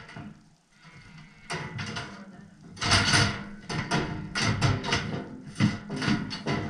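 Steel livestock chute clanking and rattling: a quiet start, then a rapid series of metal knocks and clatter from about a second and a half in, louder about halfway through.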